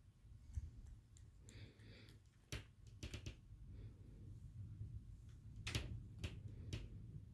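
A cat lapping water from a paper cup, heard as faint, irregular tongue clicks coming in two clusters.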